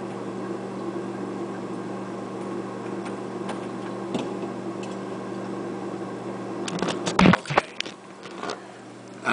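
Steady low mechanical hum in a small room, with a quick cluster of sharp knocks and clatter about seven seconds in and a single faint knock shortly after.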